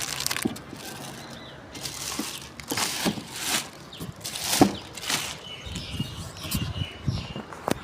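Packaging being handled while unboxing an inverter: irregular rustling and crinkling, with a few sharp knocks, the loudest about halfway through.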